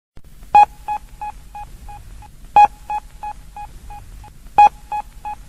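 Opening of a dub reggae record: a sharp electronic beep sounds three times, two seconds apart, each trailing off in a run of fading echoes about three a second.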